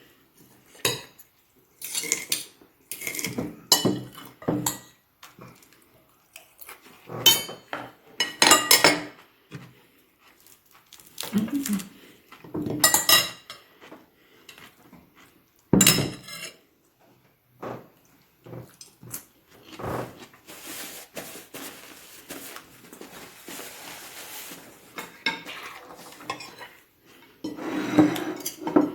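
Cutlery clinking and scraping against plates during a meal, in irregular sharp strikes with a stretch of softer scraping partway through.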